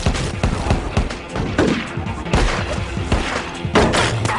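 Excerpt from an action-film soundtrack: repeated gunshots at irregular intervals over dramatic background music.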